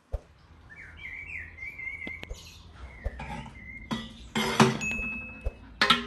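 Small birds chirping, then a large aluminium cooking pot clanking and ringing as it is picked up and handled, once about four seconds in and again near the end.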